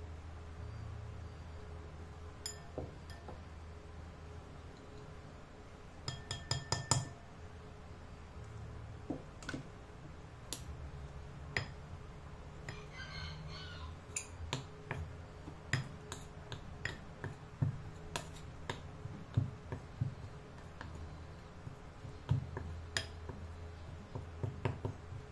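Metal spoon and fork clinking and scraping against a glass mixing bowl as butter is worked into a dry ingredient. The loudest moment is a quick run of ringing clinks about six seconds in, followed by scattered taps over a steady low hum.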